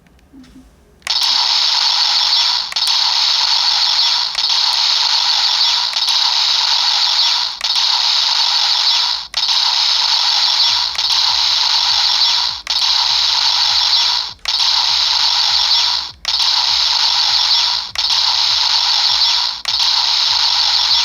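Electronic sound effect from a Bandai DX Delta Gear toy's speaker: a harsh, hissing buzz repeated over and over, in segments about 1.7 s long with brief breaks between them.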